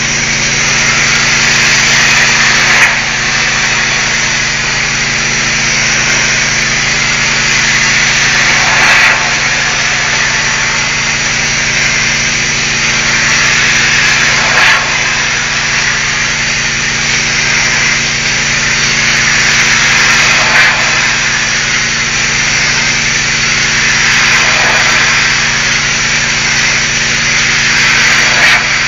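Pressure washer spray hissing steadily against a brick wall over the constant hum of an engine, the spray swelling louder for a moment about every six seconds as the wand sweeps.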